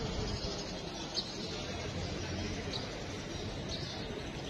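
Quiet outdoor street ambience: a steady low background hum, with short, high bird chirps coming about once a second.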